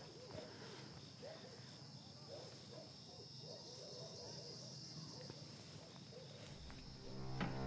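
Night insect ambience: a steady high trill of crickets with faint scattered chirps. Music swells in near the end.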